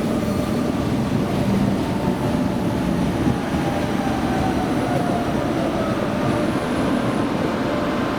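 Electric suburban train running at a station: a steady loud rumble of wheels and running gear, with a faint motor whine that slides slowly down in pitch.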